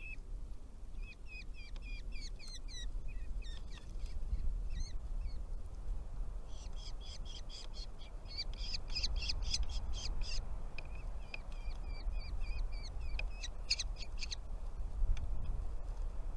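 Small songbirds at the nest giving many short, high chirps, with a fast, dense run of calls in the middle, typical of nestlings begging for food as a parent arrives. A low steady rumble runs underneath.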